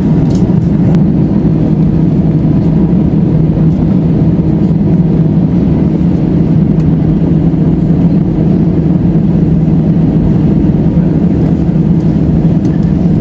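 Steady cabin drone inside an Airbus A320 airliner taxiing after landing, with the engines at idle, a constant low hum under a wash of air noise.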